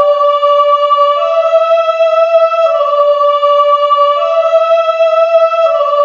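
MIDI-rendered synthesizer music: one sustained, overtone-rich tone that steps back and forth between two neighbouring notes, each held about a second and a half.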